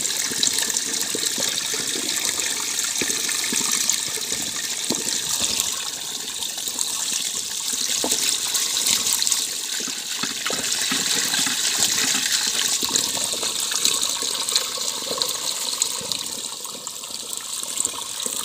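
Water pouring steadily from an open chute into a barrel already full of water, splashing around a wire-mesh strainer basket at the intake of a gravity-fed water pipe.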